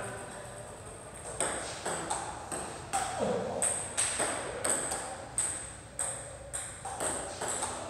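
Table tennis ball clicking off paddles and the table in quick, uneven succession, starting about a second and a half in.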